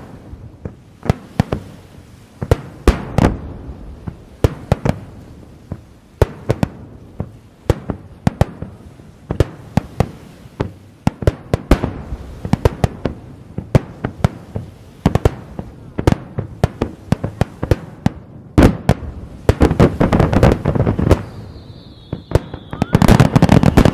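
Aerial firework shells bursting one after another, sharp bangs a few per second at an uneven pace, with dense crackling breaking out near the end.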